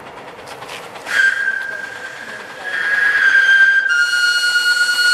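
Steam whistles of two double-headed miniature park-railway steam locomotives. There is a short blast about a second in, then a longer, louder blast from nearly three seconds in. About a second after that, a slightly lower, fuller whistle takes over and holds steadily.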